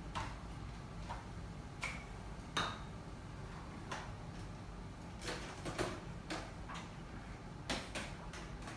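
Irregular plastic clicks and knocks as the dust container of a cordless stick vacuum is handled and fitted into place, about ten in all.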